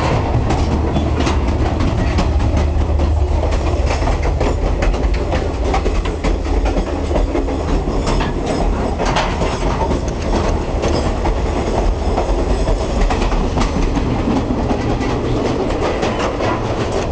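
Passenger train running on the rails, heard from inside its cars: a loud, steady low rumble from the running gear, with frequent clicks and rattles through it.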